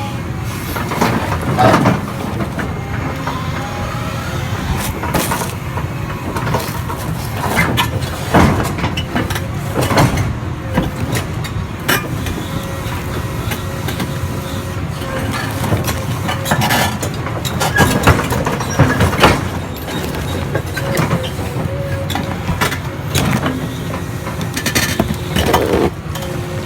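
An engine running steadily, with occasional sharp cracks and knocks of concrete breaking under a hydraulic splitter.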